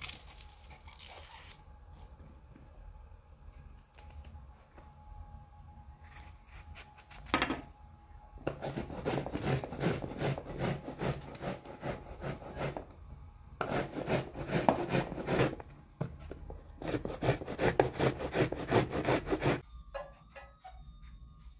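Rapid rasping strokes of vegetables being worked by hand against a blade, in three bouts a few seconds long with short pauses between them, after quieter, sparser scraping.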